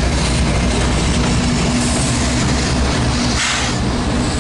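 Empty coal train rolling past at close range as a mid-train CSX diesel locomotive goes by between empty hopper cars, its engine running with a steady low drone over the noise of steel wheels on the rails. A brief hiss comes near the end.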